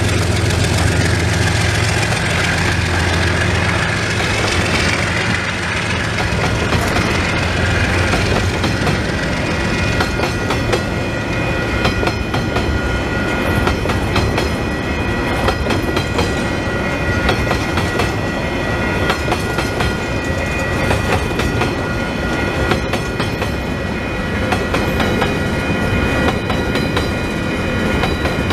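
A diesel-hauled freight train rolls past close by. The locomotives' low engine drone fades over the first several seconds, leaving the wagons' wheels clattering over the rail joints with a thin, steady high whine.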